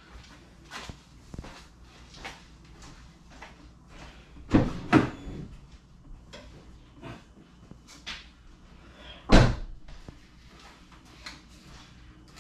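Scattered clicks and knocks of things being handled, with two louder thumps close together about four and a half seconds in and another about nine and a half seconds in.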